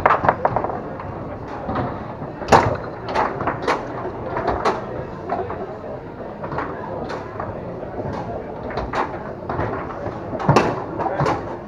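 Foosball play on a Tornado table: irregular sharp clacks of the hard ball being struck by the plastic men and of the rods knocking, with two louder hits, one a couple of seconds in and one near the end.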